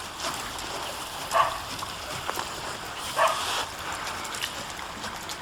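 A dog barking twice, short single barks about two seconds apart.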